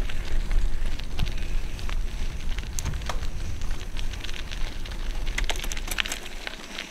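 Mountain bike tyres rolling over a gravel track: a steady crackle made of many small clicks and ticks of stones under the tyres, over a low rumble that drops away about six seconds in.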